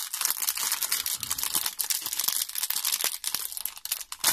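Small clear plastic bag holding spare O-rings and screws crinkling and crackling as fingers work at it, with many small rapid crackles throughout.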